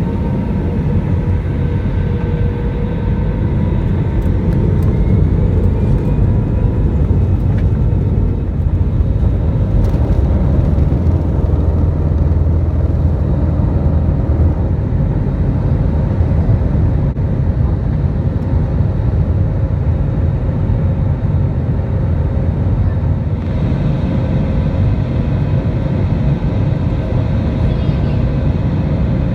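Airbus A320 cabin noise heard from a window seat: the CFM56 jet engines and airflow make a steady, heavy rumble. It swells slightly a few seconds in, with a faint rising whine.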